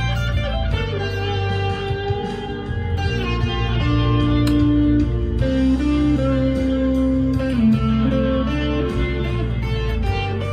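Harley Benton SC Custom II electric guitar through an amp's crunch channel, mildly overdriven, playing a single-note lead line of long held notes with a string bend about three-quarters of the way through.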